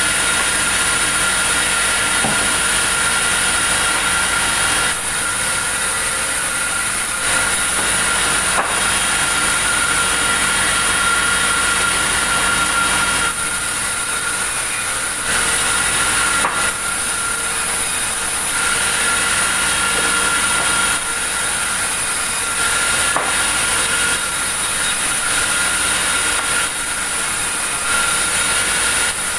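Steady, loud mechanical noise with a constant high-pitched whine, shifting slightly in level every few seconds.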